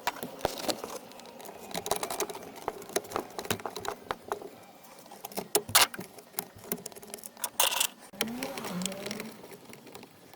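Irregular light clicks and plastic rattles from a hand tool working a screw out of the plastic steering-column cowling, with a sharper knock about six seconds in and a short scrape soon after.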